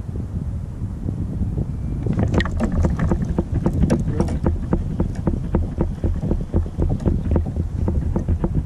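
Fishing reel being cranked: a steady run of sharp clicks, about three a second, starting about two seconds in. Wind rumbles on the microphone throughout.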